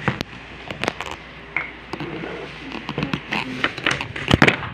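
Dishes and utensils clattering at a meal table: scattered clinks, scrapes and knocks of plates, a pot and spoons, with a cluster of louder knocks near the end.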